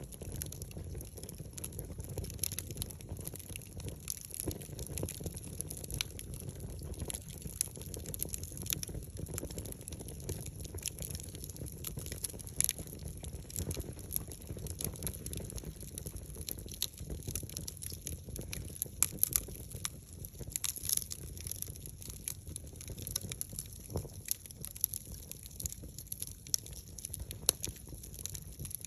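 Wood fire burning, with a low steady rumble and irregular crackles and pops from the burning wood.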